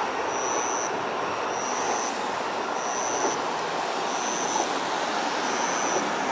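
Train passing over a level crossing, with a steady rush of wheels on rail. A short high-pitched beep repeats about once every second and a quarter.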